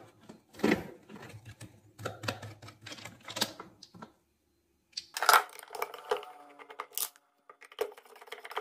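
Hard plastic clicks, knocks and scraping as a blender's plastic motor housing is handled and turned over, then a screwdriver clicking and scraping in it while the motor is being taken apart. The sound breaks off into silence for about a second partway through.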